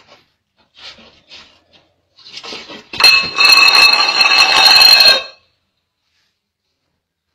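A loud electric alarm ringing with steady high tones for about two seconds, starting about three seconds in and cutting off suddenly, after a few faint ticks and rustles.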